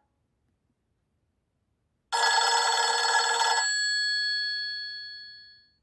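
A Nokia C5-00 built-in ringtone: a bright, bell-like ring of several steady tones that starts suddenly about two seconds in. It is held for about a second and a half, then rings out and fades away over the next two seconds.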